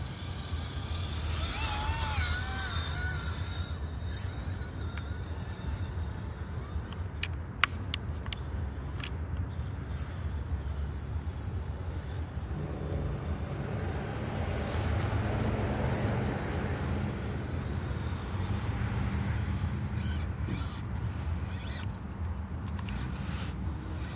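Electric RC monster truck running, its motor whine wavering up and down in the first few seconds, over a steady low rumble, with one sharp knock about eight seconds in.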